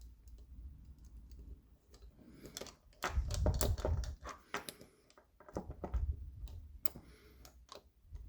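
Steel handcuffs and a homemade ring shim being handled and worked: irregular small metallic clicks, with a few dull handling bumps.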